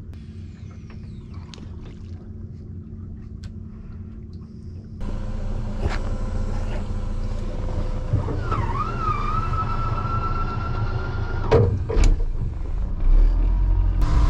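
Honda outboard motor running with a steady low rumble as the boat moves, getting louder about five seconds in as the boat runs faster with water rushing along the hull. A high tone wavers and then holds steady for a few seconds in the middle, and two sharp knocks come near the end.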